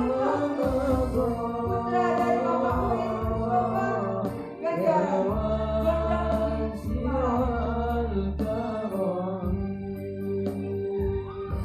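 Music: male students singing a slow, melodic song with long held notes over a steady low accompaniment.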